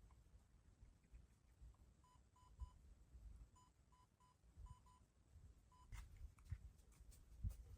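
Faint short electronic beeps at one steady pitch, mostly in quick groups of three, over a low rumble, with a few light knocks and rustles near the end.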